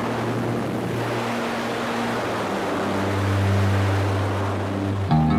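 Jump plane's engine and propeller droning steadily, with wind rushing through the open door. Guitar music cuts in suddenly near the end.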